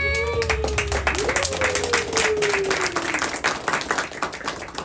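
Audience clapping and cheering at an idol live show as the song's backing music cuts off just after the start; over the clapping one voice holds a long call that slides down in pitch, and the clapping fades near the end.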